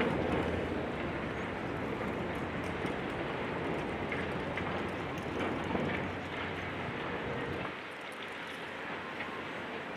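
A large engine running steadily with a low hum, which drops away about eight seconds in, leaving a quieter wash of noise with faint scattered knocks.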